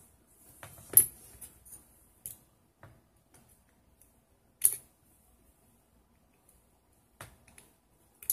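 Sharp clicks and snaps of small hand tools fitting a wire coil into the posts of a rebuildable tank's deck. The two loudest snaps come about a second in and near the middle, with lighter clicks between and near the end.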